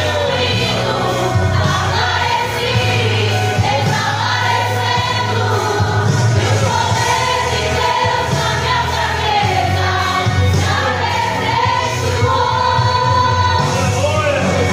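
A group of women singing a gospel hymn together, held notes over instrumental accompaniment with a steady bass line.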